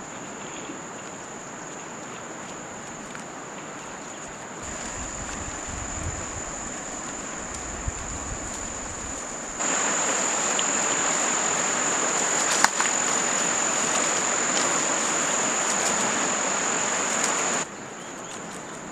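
Insects buzzing with a steady high-pitched drone over outdoor background noise. The sound jumps louder about ten seconds in and drops back shortly before the end.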